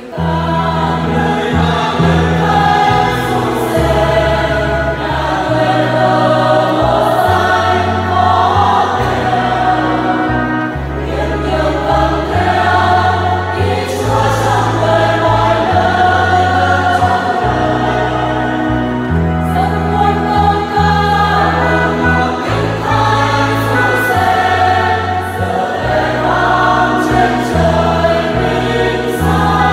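Church choir singing a Vietnamese Catholic hymn in parts, accompanied by organ whose sustained bass notes change every second or two.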